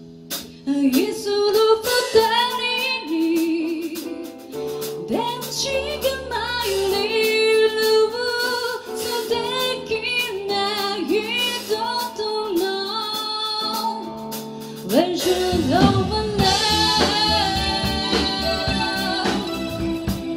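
A woman sings a slow, ornamented vocal line with vibrato over sustained keyboard chords, live with a band. About fifteen seconds in, the band comes in fuller and louder, with more bass underneath.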